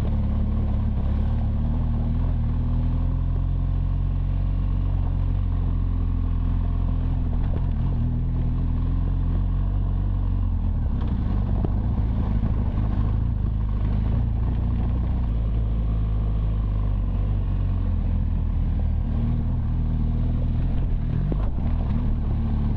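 BMW R1200 GSA's boxer-twin engine running steadily under way, with a rushing noise of wind and tyres on gravel. Short clattering knocks come from the bike going over rocks and bumps, several in the middle and a sharper one near the end as the bike takes a small jump.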